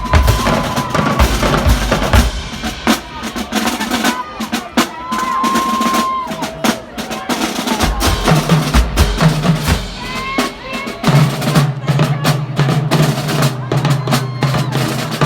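High school marching band drumline playing a marching cadence: rapid snare strokes and rolls over bass drum hits, with held voices or whistles from the crowd above it.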